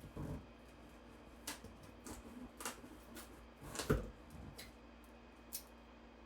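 Scattered clicks, scrapes and rustles of a cardboard box being opened and handled, with a louder knock about four seconds in.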